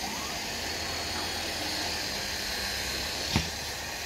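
Steady hiss and low hum of construction-site background noise, with a single sharp knock about three seconds in.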